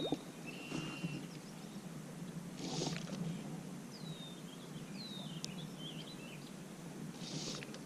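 A small homemade cork popper fly being stripped across the surface of a calm pond, popping twice with short splashy pops, about three and then seven and a half seconds in; this is the smallest size, the one that makes the least commotion. Birds chirp in the background.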